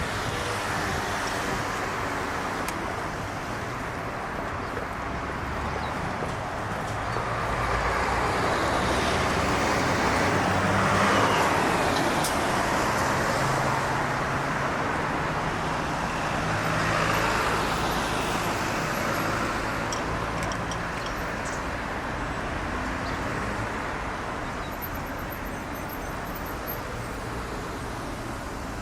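Road traffic: passing motor vehicles making a steady hum of engines and tyres, swelling twice as vehicles go by, then easing off toward the end.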